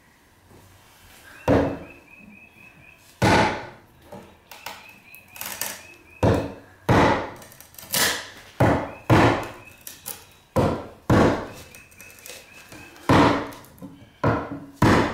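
Repeated sharp knocks of fencing pliers striking a painted wooden window stop to knock it loose, starting about a second and a half in and coming roughly one to two blows a second.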